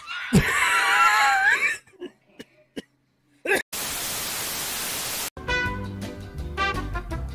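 A loud sound with a wavering pitch for about a second and a half, a few clicks, then a burst of TV static hiss that cuts off suddenly, and music starts near the end.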